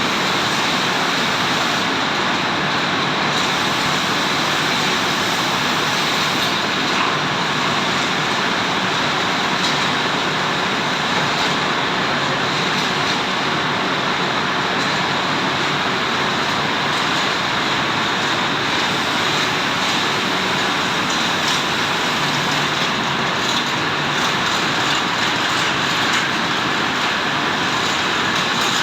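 Biesse Rover C9.50 CNC machining centre running, an even, loud, unchanging mechanical noise with a faint steady hum underneath.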